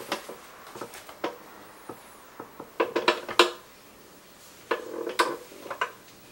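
Herman Miller Aeron office chair creaking as it reclines and comes back upright, a rapid run of creaks and clicks about three seconds in and again about five seconds in, with lighter ticks between.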